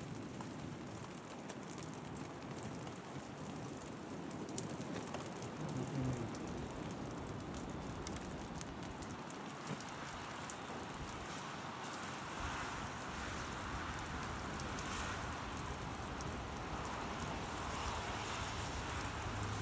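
Light drizzle falling steadily, an even hiss and patter of fine rain.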